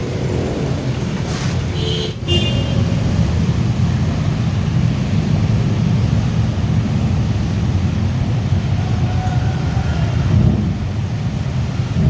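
Steady, loud low rumble of background noise, with a brief faint high-pitched call about two seconds in.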